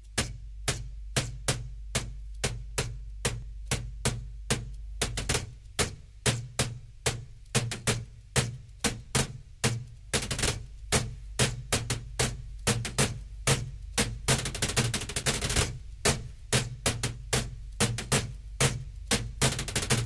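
Hands slapping and tapping a desktop computer tower case as a drum, the beat repeated and layered by a loop pedal. A steady rhythm of sharp hits over a low steady hum, with a denser layer of hits joining about halfway through.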